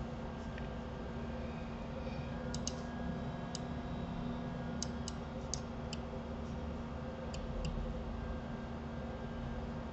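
Computer mouse clicking about ten times, some clicks in quick pairs, over a steady electrical hum.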